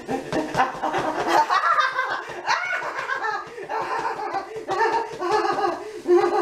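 A woman laughing at length in a theatrical, mock-diabolical way, her voice rising and falling in choppy bursts.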